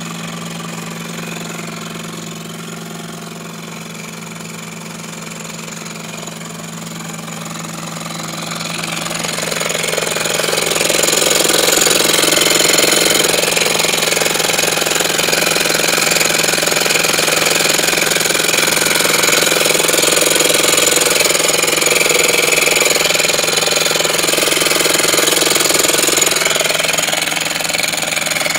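Mazda MX-6 engine running with a mechanical noise that the owner believes comes from a hydraulic tensioner damaged in an accident. The sound grows louder from about nine seconds in and eases slightly near the end.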